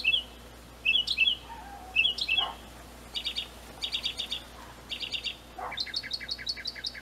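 A bird chirping: short chirps about once a second, then from about three seconds in, runs of quick repeated notes.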